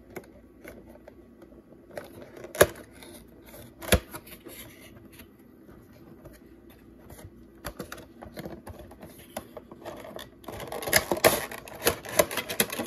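A cardboard Funko Pop box being opened by hand and its plastic insert handled: scattered taps and clicks, two sharp knocks a few seconds in, then a busy stretch of crackling and rustling near the end.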